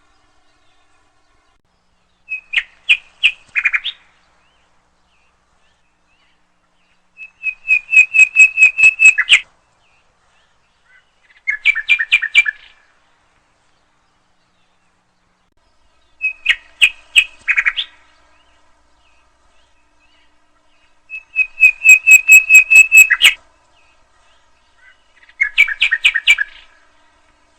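Nightingale singing: six separate phrases, each a fast run of repeated notes, some ending on a lower note, with pauses of a few seconds between phrases.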